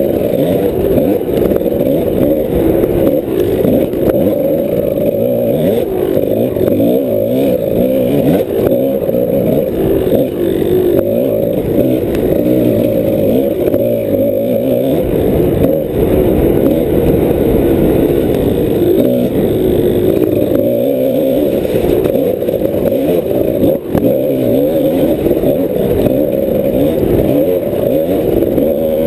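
Kawasaki KDX 200's two-stroke single-cylinder engine running hard under a dirt-bike rider, its note rising and falling constantly as the throttle is worked over a rough trail. It drops briefly once, a little over three-quarters of the way in.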